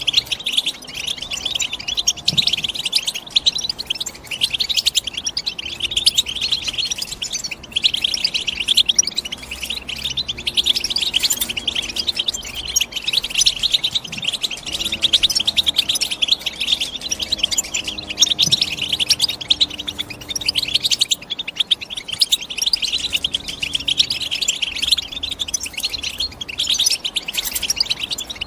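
European goldfinch singing: a continuous, rapid twittering of chirps and trills.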